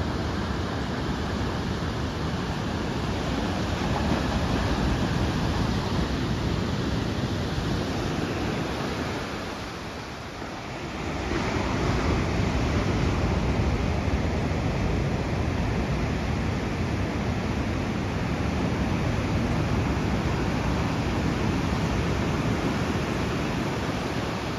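Ocean surf breaking and washing up the shore: a steady rush of waves, dipping briefly about ten seconds in.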